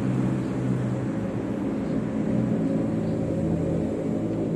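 Steady low engine drone that holds unchanged throughout.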